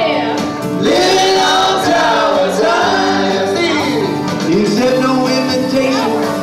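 Live band song: several voices singing together over acoustic guitar accompaniment.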